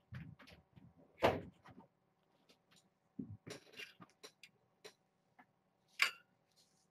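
Scattered knocks, taps and rustles of kittens scrambling and batting toys about on a play mat close by, with quiet gaps between; the loudest knock comes about a second in, another near the end.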